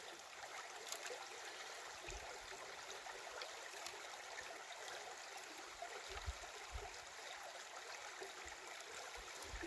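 Creek water running steadily, a soft, even rush.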